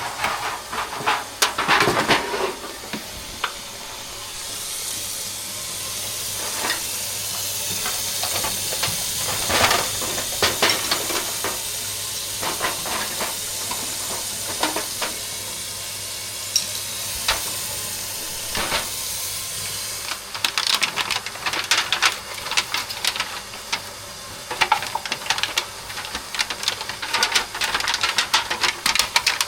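Water running from a newly installed faucet, a steady hiss from about four seconds in until about twenty seconds, with scattered clicks and knocks. After the water stops, a rapid clatter of small knocks and rattles.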